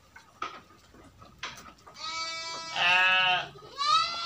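Young sheep bleating: a run of loud bleats starting about halfway through, the last one rising in pitch. A few faint knocks come before them.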